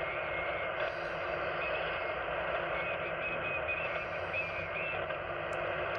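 Alinco HF transceiver's speaker receiving 40-metre sideband at 7.220 MHz: steady band hiss and static, with faint wavering tones of weak, unreadable signals.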